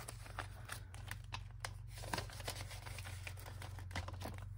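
Paper banknotes rustling and flicking as they are counted and slipped into a clear plastic binder envelope, with crinkles of the plastic sleeve as it is pressed shut. A low steady hum sits underneath.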